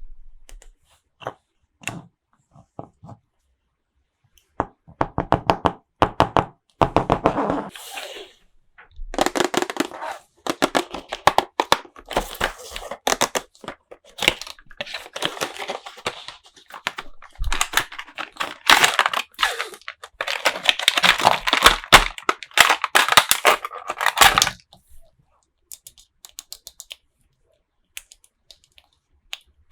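Plastic toy packaging being handled, crinkled and torn open. A few scattered clicks and taps come first, then a long stretch of dense crackling from about five seconds in, which stops a few seconds before the end.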